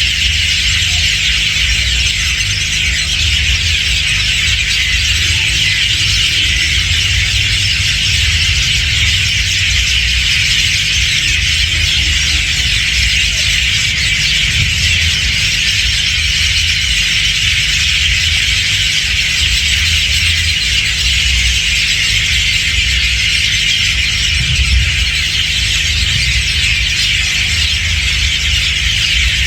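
A large flock of birds chirping and calling all at once, a dense, unbroken high-pitched chatter, over a low rumble.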